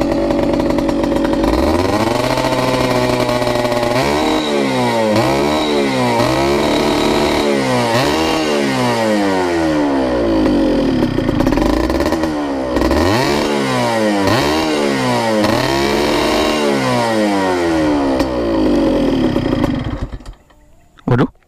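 Yamaha F1ZR's single-cylinder two-stroke engine, fitted with an aftermarket exhaust, running at a steady idle and then revved in repeated throttle blips about once a second. It cuts off near the end.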